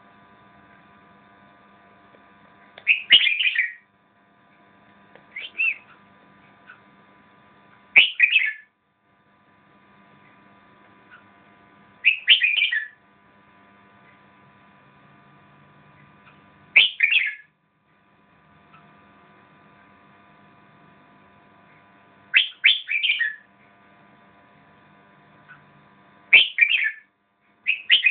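Red-whiskered bulbul singing short, loud warbled phrases about every four or five seconds, over a faint steady hum.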